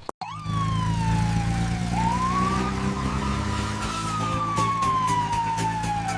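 Siren wailing: one tone that slowly falls, rises about two seconds in, then falls again, over a steady low hum.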